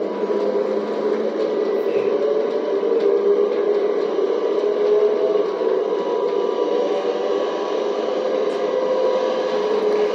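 Simulated diesel locomotive engine sound from an old MRC sound unit, sent over FM to a pocket radio riding in a boxcar of a battery-powered G scale train, running steadily with no deep bass, mixed with the whir of the locomotives' motors and wheels on the track.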